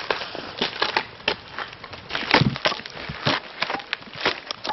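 Irregular sharp crackles and cracks, several a second, as a man climbs the trunk of a pine tree, with bark and dry forest litter scraping and breaking under his hands and boots.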